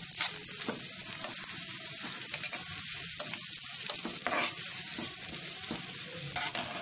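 Sliced onions and whole spices sizzling in hot oil and butter in a nonstick pan, stirred with a spatula that scrapes against the pan a few times.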